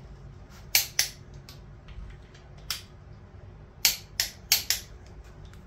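Torque wrench clicking on a cylinder head bolt of a Ford 428 FE V8: sharp metallic clicks, a pair about a second in, a single one near the middle and a quick run of four near the end.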